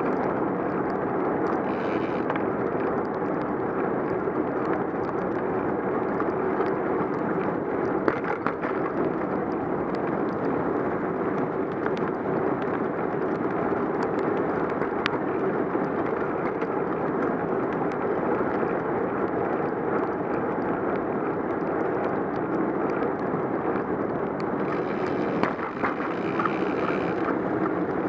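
Steady rushing noise of a bicycle being ridden on wet roads in the rain: wind on the microphone and tyre noise, with a few faint clicks.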